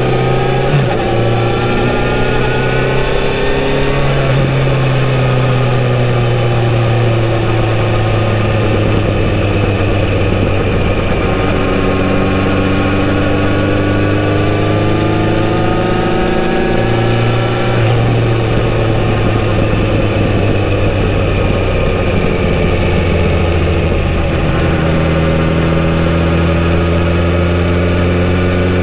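Kawasaki Z900RS 948 cc inline-four running through its stock exhaust while riding. The engine note climbs under throttle and falls back twice, then runs steady and lower near the end.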